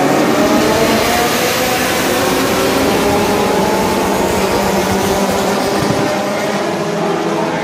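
A field of race cars accelerating away together, many engines revving at once with overlapping rising tones, the noise easing a little near the end as the pack moves off.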